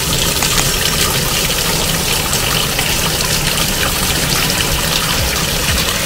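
Tap water pouring in a stream into the plastic wash tub of a twin-tub washing machine as it fills, a steady splashing rush.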